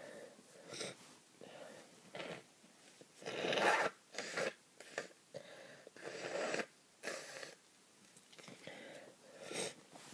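A person with a heavy, snotty cold sniffing repeatedly through a congested nose: a run of short, wet snuffles, with longer, louder ones a little past three seconds in and at about six seconds.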